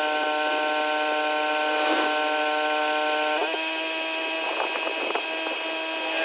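Pressure washer running: a steady, high-pitched mechanical whine with a hiss over it. The whine shifts slightly about three and a half seconds in.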